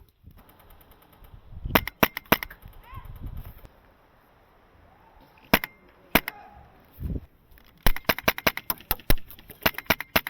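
Airsoft guns firing: a few sharp shots about two seconds in, two more around the middle, then a rapid string of many shots over the last two seconds.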